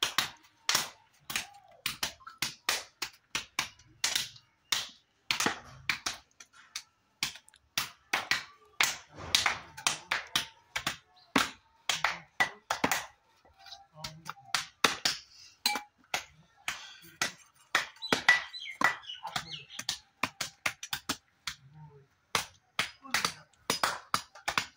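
A heavy knife chopping and cutting raw meat on a wooden stump chopping block: sharp, irregular knocks, several a second, as the blade strikes through the meat into the wood.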